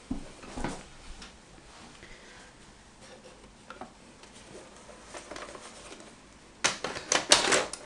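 Scattered light clicks and knocks of handling, then a quick run of loud sharp clicks and rattles near the end.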